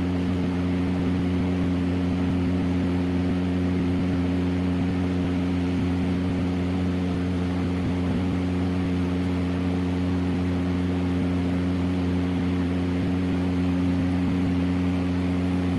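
Homemade mini table fan's small DC motor running at a constant speed, a steady hum with an airy hiss from the spinning blades.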